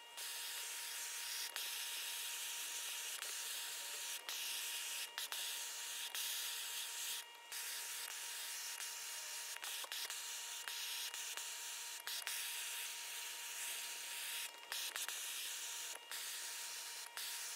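Hand-held gas torch burning with a steady hiss as its flame scorches a wooden axe handle, charring it to harden and darken the wood. The hiss has brief dips now and then.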